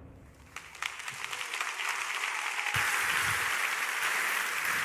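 Large audience applauding in a big hall. The clapping builds about a second in, swells again near the middle and then holds steady.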